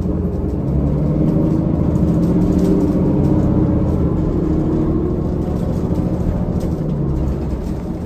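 Cummins ISL inline-six diesel of a New Flyer D40LFR transit bus running as the bus drives, heard from inside the cabin with road rumble. The engine note picks up about a second in, holds, then eases off near the end.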